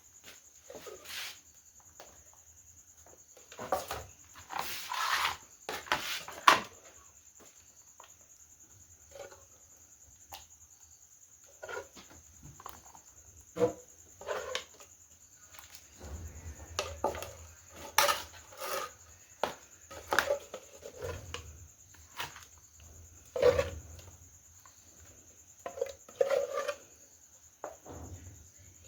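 Scattered clinks and knocks of utensils against pots and dishes, with a few brief scrapes and low thuds, over a steady high-pitched insect drone.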